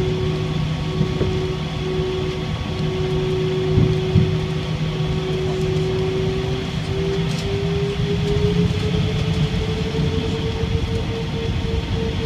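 Jet airliner's engines heard inside the cabin: a steady hum over a low rumble, with the engine tone rising slowly in pitch from about seven seconds in as the engines spool up. A couple of light bumps about four seconds in.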